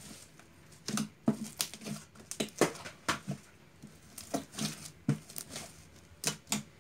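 A large lump of glossy homemade slime being stretched, folded and mixed by hand, making irregular sticky clicks, pops and squelches.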